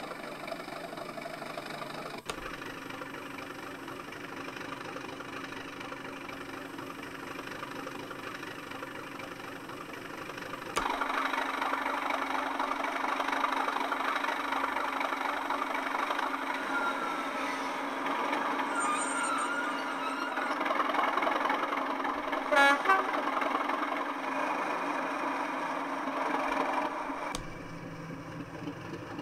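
Recorded Class 37 diesel engine sound (English Electric V12), playing from a DCC sound decoder through small model-railway speakers. The engine drone changes tone and loudness abruptly about two, eleven and twenty-seven seconds in, as the sound moves to a different speaker. The middle stretch is louder and brighter, with thin bass, and a short sharp clank comes about twenty-three seconds in.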